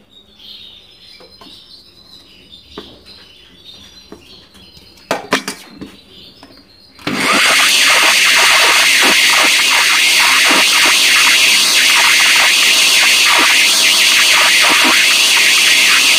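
Moulinex electric grinder milling seeds. A few light clicks and knocks of handling come first, then about seven seconds in the motor starts abruptly and runs steadily at full speed.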